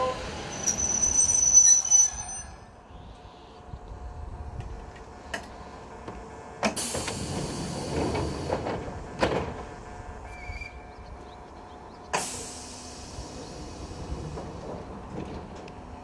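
Kintetsu electric train's brakes squealing with high tones as it comes to a stop, then several sharp clunks from its sliding doors and equipment while it stands at the platform.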